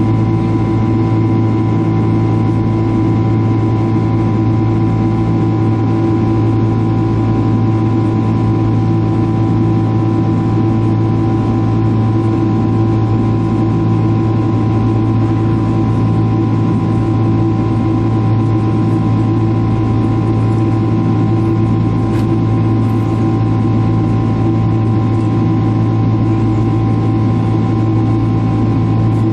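Boeing 767's turbofan engines running steadily at climb power just after takeoff, heard inside the cabin by the wing: an even drone with a few held tones over a low rumble and rushing air.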